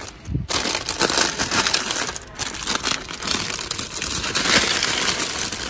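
Plastic LEGO polybags and foil minifigure packets crinkling and rustling as a hand rummages through a wire bin. The rustle starts about half a second in and is close and loud.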